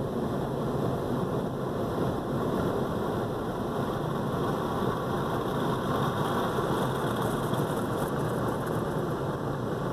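Steady mechanical rumble and hiss heard from inside the cabin of a car stopped at a car wash exit, with a slightly brighter hiss about six to eight seconds in.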